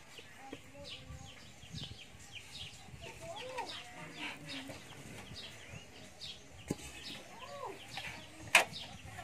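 Yard birds chirping over and over, with chickens giving two short arched clucks, one about three and a half seconds in and one near the end. A sharp click sounds near the end.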